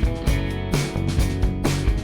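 Background instrumental music with guitar over a steady drum beat.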